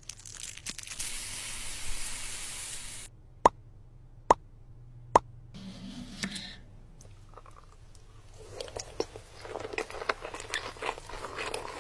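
Sushi-making ASMR sounds: a steady hiss from the rice bag for about three seconds, then three sharp knife taps about a second apart, and near the end crisp crunching and chewing of the roll.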